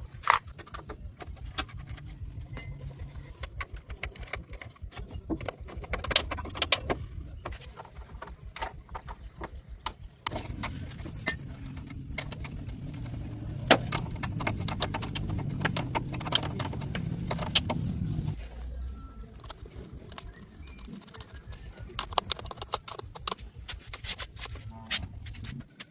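Scattered metallic clinks and knocks, like tools being handled during car repair work, with a low steady hum for several seconds in the middle.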